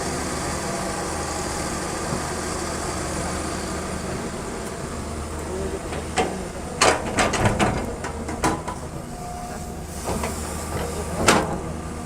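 Kobelco SK140 excavator's diesel engine running steadily, with a quick series of sharp metallic clanks and knocks about six seconds in and one more near the end, typical of the bucket and material striking while loading a dump truck.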